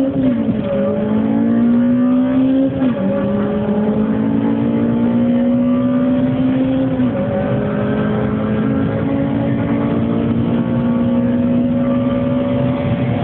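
Honda Civic Type R engine under full-throttle acceleration: its note climbs slowly through each gear and drops sharply at gear changes about three and seven seconds in.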